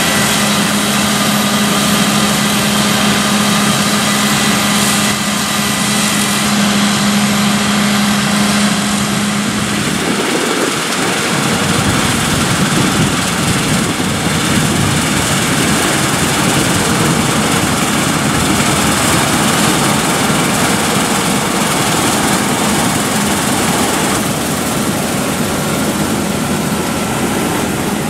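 Claas Lexion 7500 Terra Trac combine harvester threshing soybeans, its engine and threshing machinery running steadily under load. A steady hum in the first part stops about ten seconds in, and the running sound is rougher and deeper after it.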